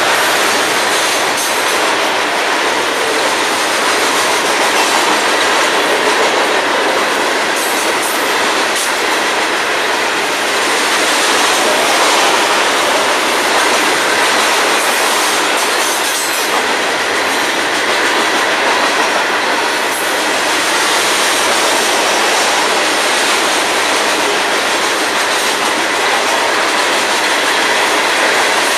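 Loaded freight hopper cars rolling past at close range: a steady rush of steel wheels on rail, with occasional faint clicks.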